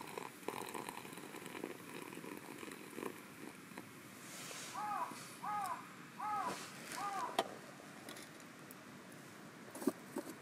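Wood fire crackling in a small camp stove, with a couple of sharp pops late on. At first a thin stream of hot water trickles from a kettle into a cloth coffee filter. Midway, a bird gives four short rising-and-falling calls in quick succession.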